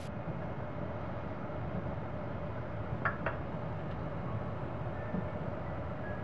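Steady low rumble and hum inside a sleeper train carriage, with two short clicks about three seconds in.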